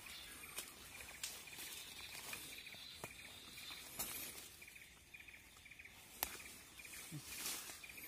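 Faint forest ambience: a small high chirp repeating steadily several times a second, with a few sharp light clicks and knocks as bamboo poles are handled and fitted together.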